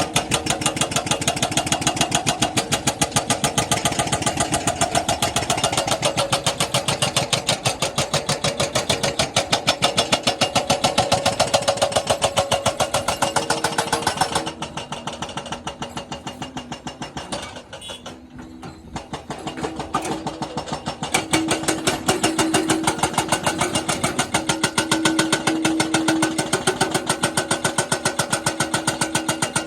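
Jackhammer running, a fast, even rattle of blows. About halfway through it eases off and goes quieter for several seconds, with a steady hum showing underneath, then picks back up to full force.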